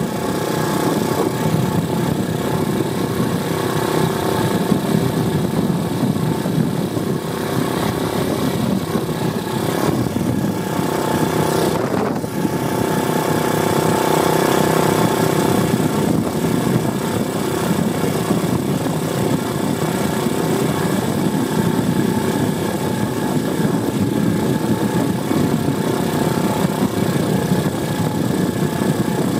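Apollo 125cc pit bike's single-cylinder four-stroke engine running under way, heard close from the rear of the bike. The engine note varies with the throttle and breaks briefly about twelve seconds in.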